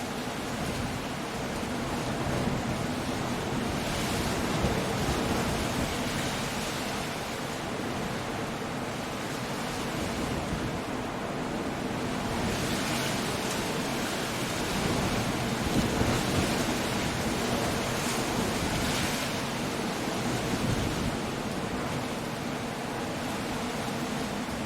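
Storm ambience on a rocky coast: a steady rush of surf and wind, swelling louder several times as waves break and gusts pass.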